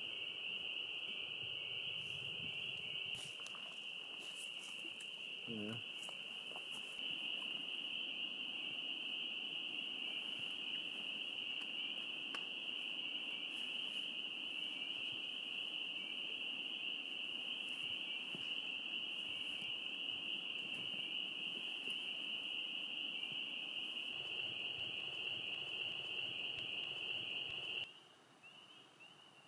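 Chorus of spring peepers: dense, steady high-pitched peeping that cuts off abruptly near the end.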